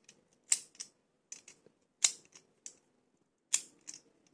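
Black plastic scooter phone holder's swivel joint clicking as it is turned by hand: four small groups of sharp clicks, two or three in each.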